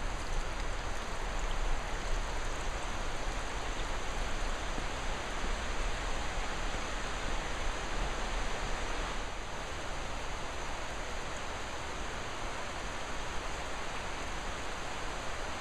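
Steady rushing noise, even and unbroken, with a deep rumble underneath.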